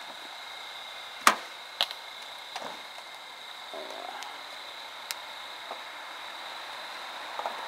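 A steady hiss with a faint constant high whine, broken by a few sharp clicks. The loudest click comes about a second in and another follows half a second later. Faint voices can be heard now and then.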